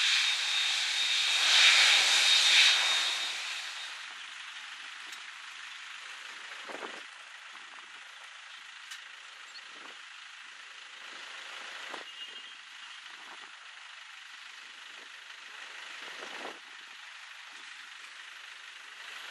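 Jet airliner engines, a loud hiss with a steady high whine, fading away over the first three or four seconds. After that only a faint steady hiss remains, with a few short low puffs of wind on the microphone.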